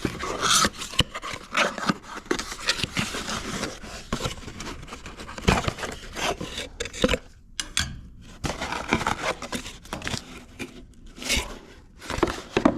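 Hands opening a small retail box and taking out its contents: irregular scraping, rubbing and rustling of cardboard and packaging, with sharp clicks and taps throughout.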